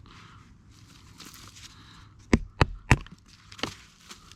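Fatwood being split down: three sharp wooden knocks in quick succession, then a lighter one, after some rustling.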